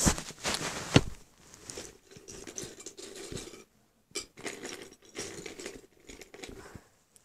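Handling noise from a phone being moved about by hand: rustling and scraping against the microphone, with several small knocks, the sharpest about a second in.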